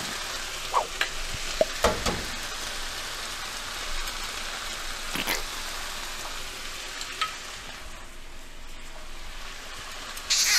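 Chicken and pad Thai sauce sizzling steadily in a hot nonstick frying pan, with a few sharp clicks in the first two seconds as eggs are cracked in, and single clicks later on.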